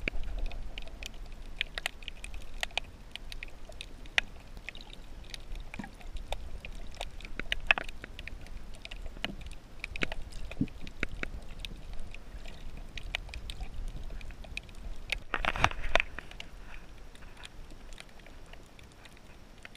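Underwater sound over a shallow coral reef: scattered sharp clicks and crackles over a low rumble, with a louder rush of noise about 15 seconds in.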